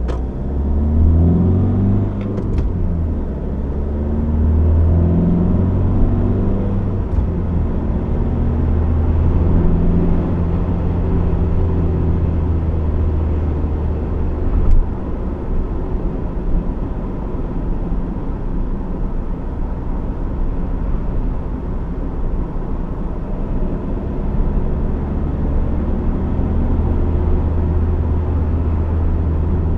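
2015 Honda CR-V's 1.6 i-DTEC four-cylinder turbodiesel pulling the car along, its engine pitch shifting through the first few seconds, then a steady low engine and road rumble. A single short knock about fifteen seconds in.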